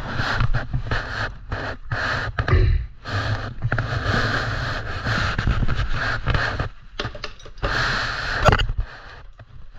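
Rustling and scraping handling noise as a boxed bike chain is handled and its packaging worked at, coming in uneven stretches with short breaks.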